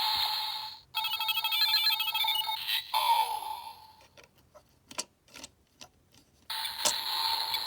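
Zi-O Ridewatch toy playing its electronic sound effects through its small speaker: a stepped run of beeping tones in the first few seconds, then a few sharp clicks, then another burst of electronic sound near the end.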